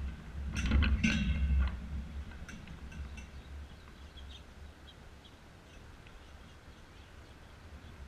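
Clattering and sharp clicks of sunflower seeds and the wire seed tray as a gray squirrel feeds and shifts about on the feeder, loudest for about a second near the start, then a few scattered clicks.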